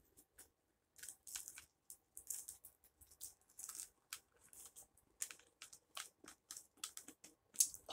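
Faint, scratchy rustling and small clicks, on and off, from hands handling a baby doll and working ribbons into its curly hair.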